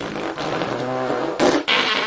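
Fart sound effect: a drawn-out fart that holds a steady pitched note for about half a second, followed by two short sputtering blasts near the end.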